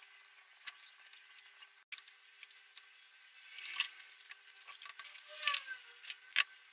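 A few scattered sharp snips and clicks from ikebana scissors cutting stems and from stems being handled in the arrangement. The loudest come about four seconds in and near the end.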